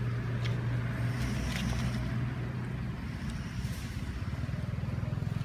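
A motor engine running steadily with a low hum, weakening briefly about three seconds in, then back with a slight pulse. A few faint short high chirps sound over it.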